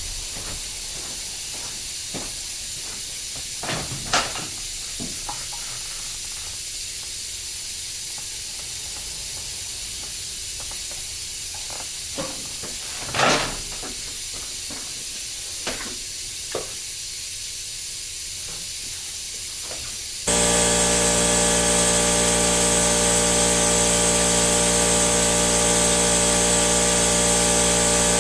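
Steady background hiss with a few isolated knocks of parts being handled. About twenty seconds in, a loud, steady machine noise starts abruptly: a hiss with a fixed hum in it.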